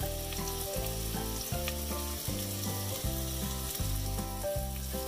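Chopped red onion, garlic and julienned ginger sizzling steadily in hot oil in a pot, with background music with a steady beat underneath.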